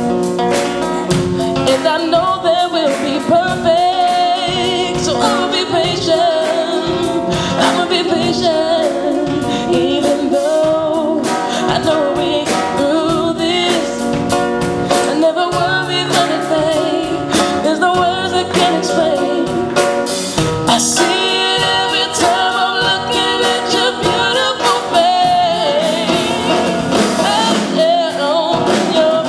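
Live band playing a song: a man sings lead over a strummed nylon-string classical guitar, with bass guitar and drums keeping a steady beat. A woman's backing vocal joins near the end.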